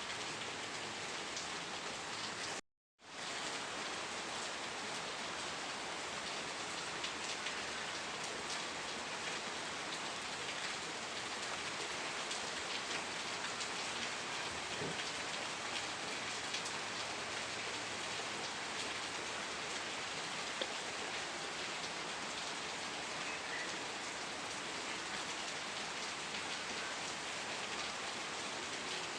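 Steady rain falling, a dense even patter of drops on a surface. About three seconds in, the sound cuts out completely for a fraction of a second, then resumes unchanged.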